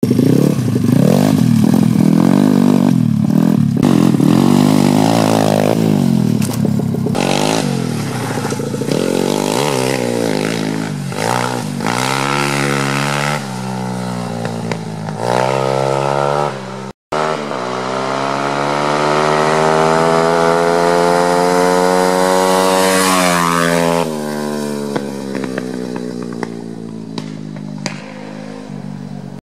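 Four-stroke pit bike engine being ridden hard, its pitch climbing and falling as the rider revs and shifts, accelerates and backs off. It cuts out for an instant a little past halfway, then makes one long climb in pitch before easing off and running quieter near the end.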